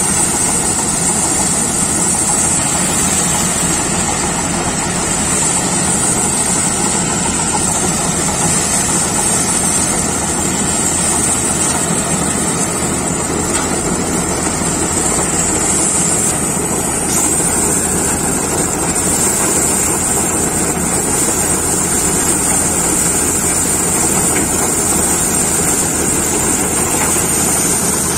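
John Deere combine harvester running steadily while threshing cut soybean plants fed in through its reel header: a continuous engine and machinery drone with a constant high-pitched whine over it.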